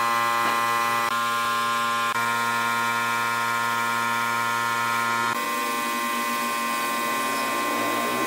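Compressed-air spray gun hissing as it sprays finish onto a wooden door frame, over the steady hum of an air compressor motor; the hum shifts a little a few times.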